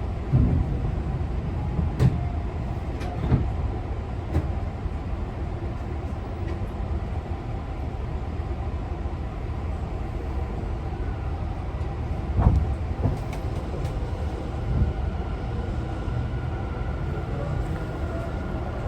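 Running sound heard inside a Tobu 50090-series electric train car: a steady low rumble of wheels on track, with a handful of sharp knocks from the wheels over rail joints. A faint whine comes in during the last few seconds.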